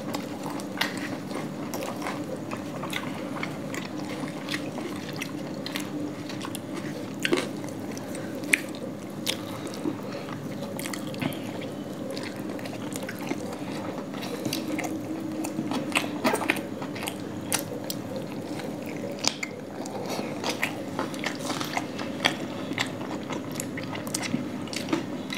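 Two people eating laccha paratha and chicken curry with their hands: chewing and mouth smacks with irregular small clicks as the flaky paratha is torn and eaten, over a steady low hum in the background.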